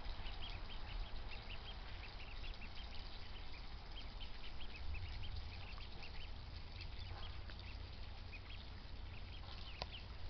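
A group of ducklings peeping: a continuous chatter of many short, high peeps, several a second and overlapping.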